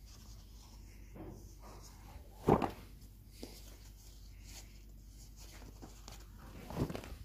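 Stiff leather hides being lifted and turned over by hand, giving a few dull flaps: a loud one about two and a half seconds in and another near the end.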